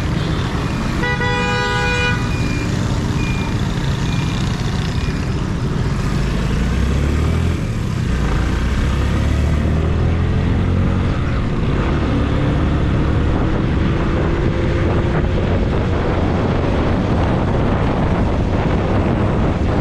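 Motorcycle engine running under way, with road and wind noise on a helmet-mounted camera. A vehicle horn sounds for about a second near the start, and in the second half the engine's pitch climbs slowly as the bike speeds up.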